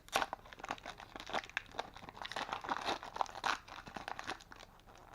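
Plastic trading-card pack wrapper crinkling and tearing as it is handled and opened: a dense run of small irregular crackles, with a sharper, louder crackle at the very end.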